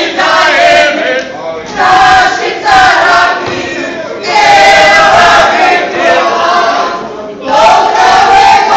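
A group of women singing a Šokac kolo song together as they dance in a circle. The singing comes in loud phrases of one to three seconds with short breaks between them, with long held notes.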